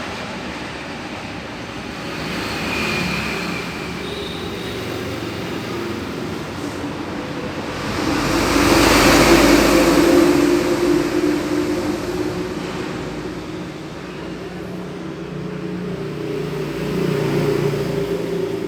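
Steady road traffic noise, with one vehicle passing louder about eight to ten seconds in.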